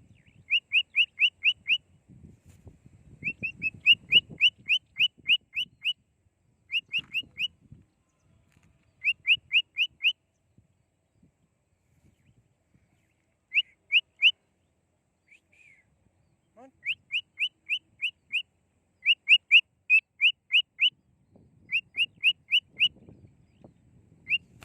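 Cockatiel calling in bursts of short, sharp rising chirps, about five or six a second, three to eight at a time with pauses between. A faint low rumble comes and goes under them.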